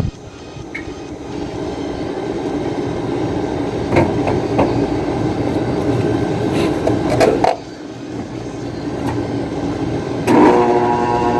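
An air-conditioner compressor's electrical hum cuts off suddenly. A rushing mechanical noise with a couple of sharp clicks follows, and the hum starts again near the end. The compressor is hard-starting and is being tried with a 60 µF starting capacitor.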